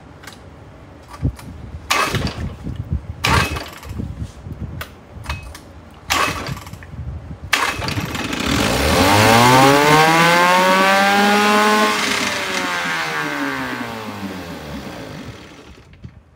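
Irregular clanks and knocks, then the 1972 Johnson 6 hp two-cylinder two-stroke outboard revs up in a smooth rising pitch, peaks, and winds back down over several seconds before dropping away near the end.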